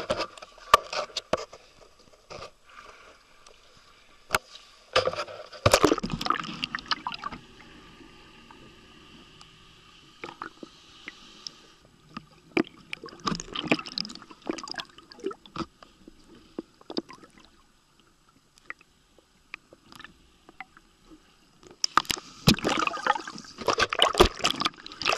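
Water sloshing and gurgling in irregular bursts, with scattered clicks and a faint steady hum between them.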